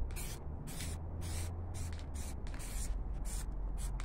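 Aerosol spray can of black primer hissing in short repeated bursts, about two or three a second, as paint is sprayed on.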